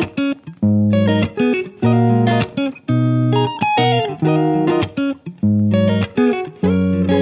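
Background music: an instrumental led by guitar, playing short phrases of plucked notes with brief breaks between them.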